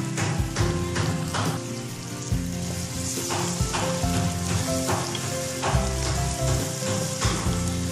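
Chopped okra with onion, tomato and green chilli sizzling as it stir-fries in hot oil in a pan. The sizzle grows to a steady hiss about three seconds in, over background music with a steady beat.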